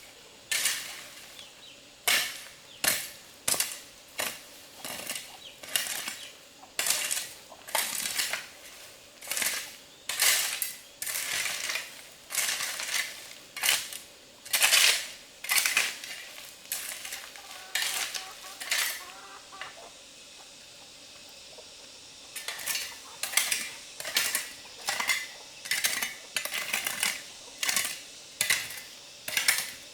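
Repeated sharp metallic clinks and scrapes, about one to two a second, stopping for a few seconds a little past the middle and then resuming.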